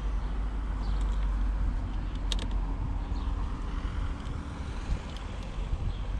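Wind buffeting the microphone in a fluctuating low rumble. Over it come a few light metallic clicks of battery cable ring terminals being handled and seated on the battery posts, the sharpest about two seconds in.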